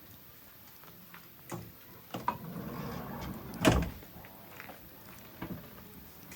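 Campfire crackling with a few sharp pops of burning wood, a stretch of rustling about two seconds in, then one loud knock near the middle.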